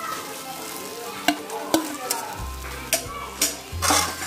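Mashed boiled potatoes sizzling as they go into hot oil and spices in an iron kadhai, stirred with a perforated metal spatula that knocks and scrapes against the pan about five times. A louder burst of sizzling comes near the end.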